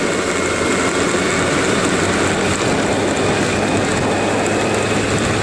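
Motor scooter engine running steadily while riding, mixed with wind and road noise.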